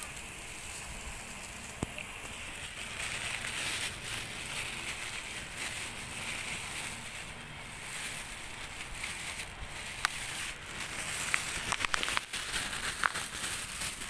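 Thin plastic carrier bag rustling and crinkling as it is handled and opened, with a cluster of sharp crackles near the end, over a steady background hiss.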